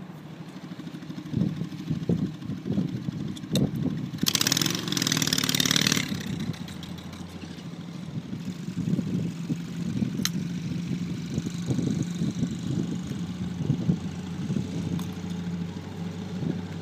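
Small off-road vehicle engine running and revving unevenly, its pitch and level rising and falling. About four seconds in there is a brief rush of noise lasting roughly two seconds.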